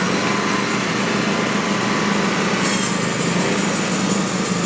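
Frontier OS35 portable bandsaw mill running under load, its engine holding a steady hum while the carbide band blade saws the opening cut into a large tulip poplar log. A thin high whine joins the cutting noise about halfway through.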